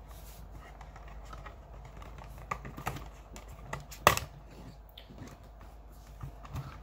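Scattered plastic clicks and taps from fingers working the hinged front door of a CompactLogix 1769-IQ32 DC input module as it is opened. The sharpest click comes about four seconds in.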